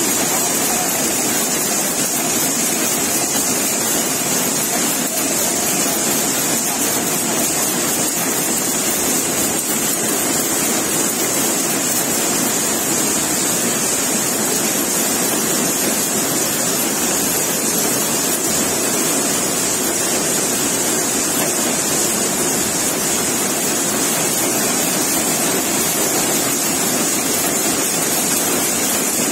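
Projectile shuttleless looms running at full speed, a loud, steady, unbroken machine noise that never pauses.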